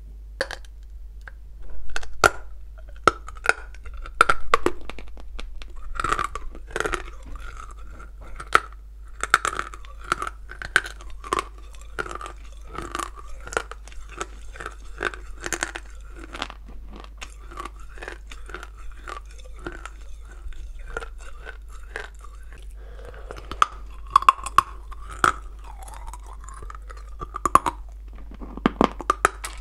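A dry lump of blue Ural clay bitten and chewed close to the microphone: a dense run of sharp crunches and crackles, with louder crunches about two and four seconds in.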